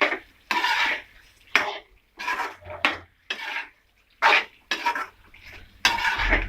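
Spoon scraping around a pan of curry as it is stirred in, in about ten short, irregular strokes.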